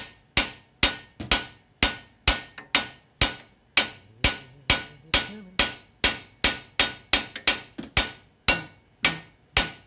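Claw hammer repeatedly striking the metal of a Ford Focus SVT's front strut assembly and knuckle, to knock the old strut loose where it is stuck in the knuckle clamp. Steady, evenly spaced blows come about two a second, each ringing briefly.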